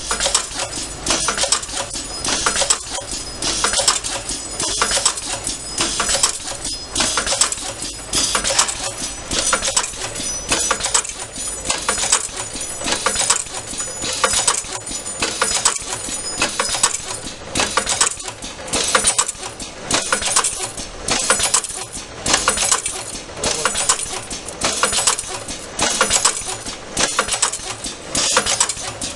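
Mang automated chamfering machine working through a batch of thin metal rods, chamfering their ends. A high metallic scraping and clinking repeats about once a second, each machine cycle with the same pattern.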